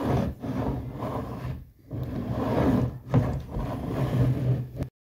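Muffled rubbing and scraping handling noise on the microphone, coming in several uneven surges, that cuts off abruptly near the end.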